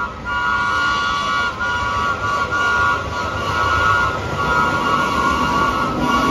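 Vintage New York subway train sounding its horn as it approaches, a chord of several notes held in long blasts with brief breaks, over the rumble of the train.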